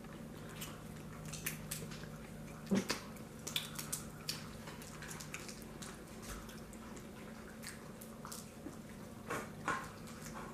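Eating sounds: chewing, with scattered small cracks and clicks of crab shells being broken and picked apart by hand, over a faint steady hum.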